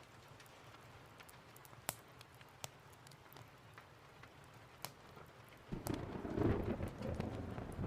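Steady rain with scattered sharp clicks, then about six seconds in a loud rumble of thunder breaks in suddenly and carries on.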